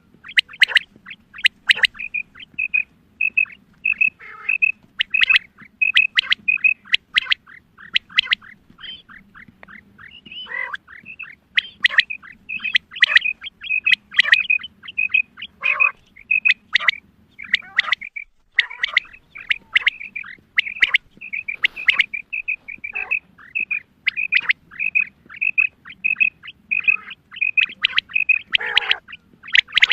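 Female quail calling: rapid series of short, high, chirping notes, often in pairs, repeating several times a second with a few louder sweeping calls in between.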